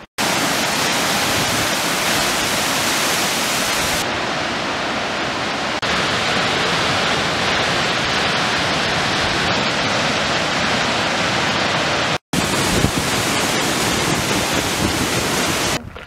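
Steady, loud rush of falling water from the Plitvice Lakes waterfalls, across several spliced clips. It cuts off for a moment about twelve seconds in.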